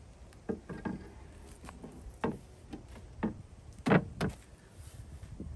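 A wooden plank being fitted across a car boot, knocking against the car's trim in a handful of irregular knocks, the loudest about four seconds in. Wind rumbles on the microphone underneath.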